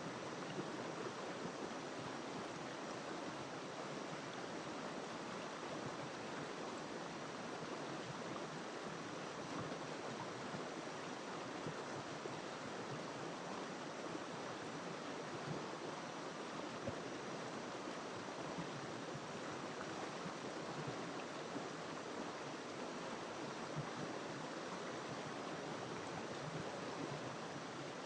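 River water flowing: a steady, even rush of running water.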